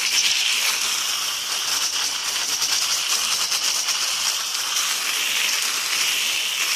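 Hose-end foam gun spraying a stream of soapy water onto a car's body panels: a steady hiss and spatter of water on the paint.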